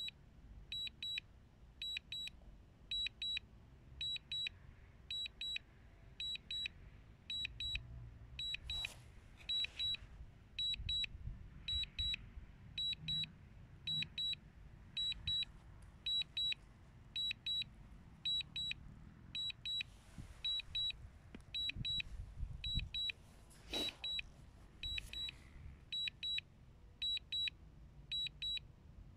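DJI Mini 2 remote controller sounding its return-to-home alert, a short high double beep repeating about once a second: the drone is flying itself home on low battery. Wind buffets the microphone underneath, gusting twice.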